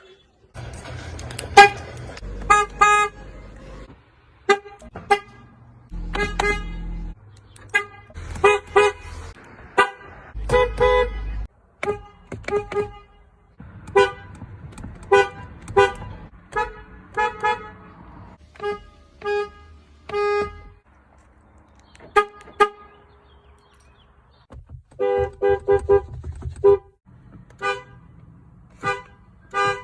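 A vehicle horn honked over and over, mostly in short taps with a few longer blasts, and a quick run of toots near the end. A low rumble sits under some of the honks.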